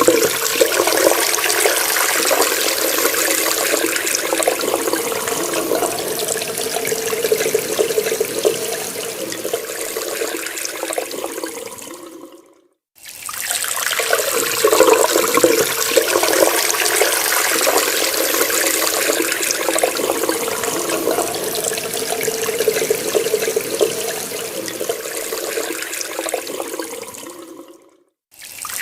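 Water running steadily from a tap. It fades away and stops briefly about halfway through and again near the end, then comes back each time.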